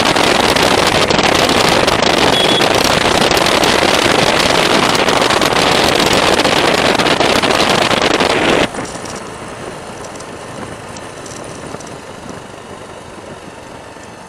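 Loud wind rushing over the microphone of a moving motorcycle, steady and without speech. About two-thirds of the way through it cuts off suddenly to much quieter steady road and vehicle noise.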